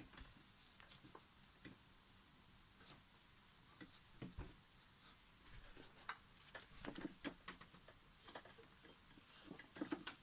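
Faint, irregular light clicks and taps of small objects being handled, scattered over quiet room tone and coming more often in the second half.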